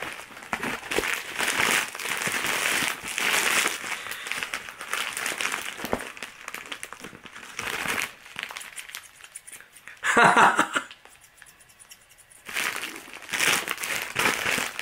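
Crinkling and rustling of a white plastic mailer bag being handled, in irregular bursts, loudest about ten seconds in and again near the end.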